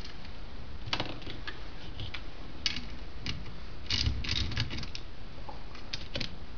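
Socket ratchet clicking as nuts are worked on steel studs of a brake pedal box bracket, with light metal clinks of tools and parts. The clicks are scattered, with a quick run of them about four seconds in.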